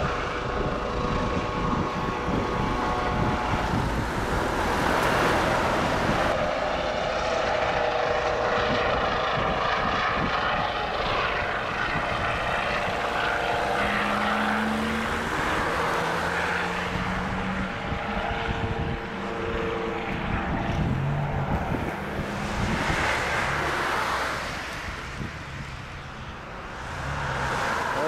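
Police helicopter running steadily, its engine and rotor noise dipping briefly near the end.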